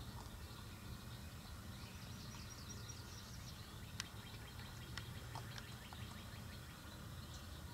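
Faint woodland ambience: a steady low rumble with thin, high songbird chirps twittering about two to three seconds in, and a few sharp ticks, one louder about four seconds in.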